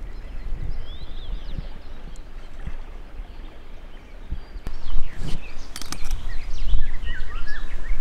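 Outdoor riverbank ambience: wind buffeting the microphone as a steady low rumble, with songbirds chirping now and then. The wind grows louder about five seconds in, the birdsong gets busier, and a few sharp clicks come around the same point.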